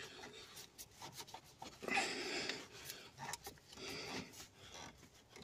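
Irregular rubbing and scraping of a hand and socket tool working at a bolt in a cramped engine bay, with the longest scrape about two seconds in and another about four seconds in.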